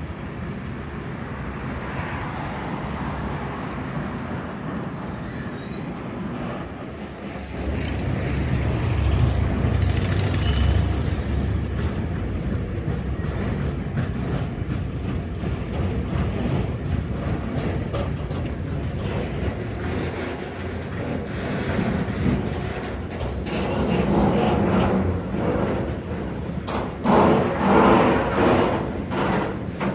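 Container freight train rolling past, a continuous rumble of steel wheels on rail. It grows heavier for a few seconds about eight seconds in and turns louder and uneven near the end.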